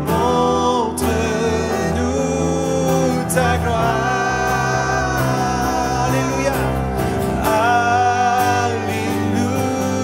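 Live worship song: a man singing long held notes over an acoustic guitar, with steady low notes underneath.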